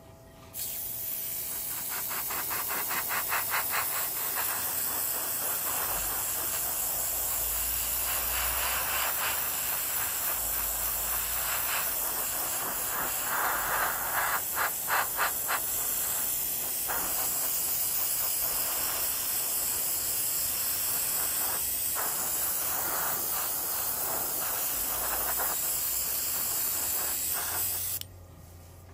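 Airbrush spraying acrylic paint thinned about 20% with acrylic thinner: a steady hiss of air and paint that starts about half a second in and stops about a second before the end, with a rapid flutter in places. The spray runs smooth, without the spitting seen with unthinned paint.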